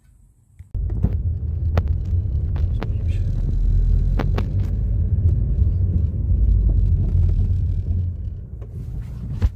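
Car driving with a steady low road rumble, marked by several sharp knocks in the first few seconds. This is the knock that appeared after the brake discs were machined; the steering wheel and brake pedal do not shake, and the cause is unknown to the owner.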